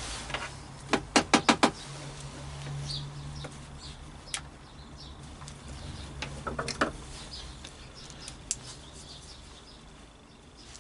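Small hard parts being handled while wiring up a plug: a quick run of about five sharp clicks a little after a second in, then scattered single clicks and light taps, over a low steady hum.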